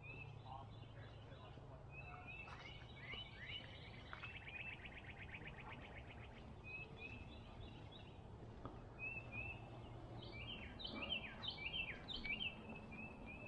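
Songbirds chirping and singing, faint, with a fast trill about four seconds in and a busier run of chirps near the end. A faint low hum sits underneath for the first half or so.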